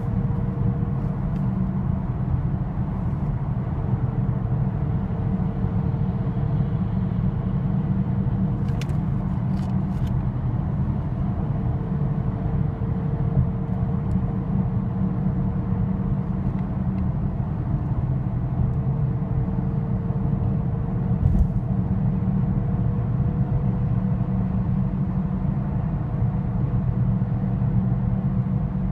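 2013 Ford Mustang GT driving over a steady low road and engine rumble, with a thin, high gear whine from the drivetrain. The whine comes and goes in stretches of several seconds, sounding on throttle and falling quiet off throttle, and near the end it holds and slowly rises in pitch.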